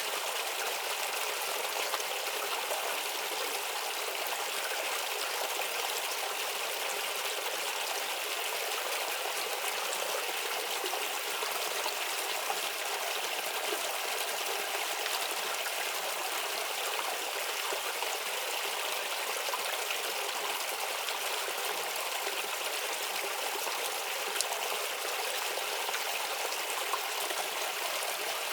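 Shallow stream babbling and trickling steadily over stones, a continuous splashing hiss with faint droplet ticks.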